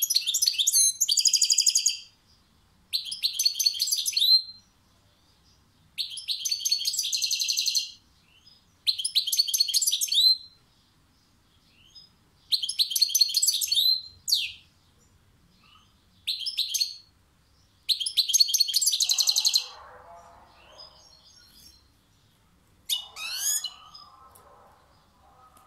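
A caged European goldfinch singing: repeated bursts of fast, high twittering song, each one to two seconds long, with short pauses between. Near the end a fainter, lower sound comes in under the last phrases.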